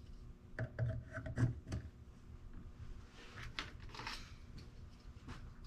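Banana-plug patch leads being handled and plugged into a relay trainer's sockets: a few light clicks and knocks in the first two seconds, then a brief rustle around three to four seconds in.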